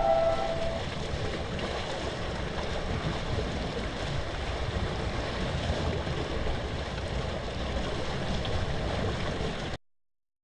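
Floodwater rushing and swirling in a whirlpool, a steady low rushing that cuts off suddenly near the end.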